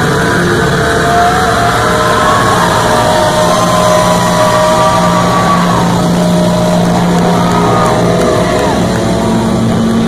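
Live rock band playing loud without vocals: distorted electric guitars hold a dense, droning wash, with a few held notes that slide slowly in pitch above it.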